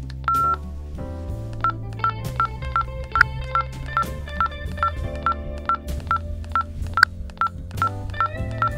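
Key-tone beeps from a GOCOM G9 FRS walkie-talkie as its channel is stepped through: one longer beep just after the start as the menu button is pressed, then a steady run of short, even beeps at about two to three a second as the up key is pressed repeatedly.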